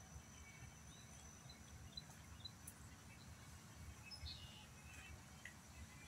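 Faint outdoor ambience: a low wind rumble with scattered short, high bird chirps.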